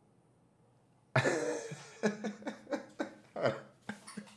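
About a second of near silence, then a man laughing hard in a string of short bursts.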